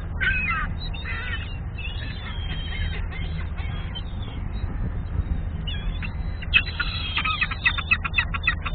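A flock of gulls calling. A few squawking calls come near the start, then a quieter stretch, then a quick run of many overlapping calls in the last couple of seconds, all over a steady low rumble.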